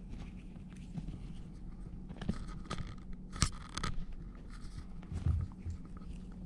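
A kitten's paws and claws scuffling and scratching on carpet as she pounces on a dragged feather boa, with a few sharp clicks and a dull thump just after five seconds, over a low steady hum.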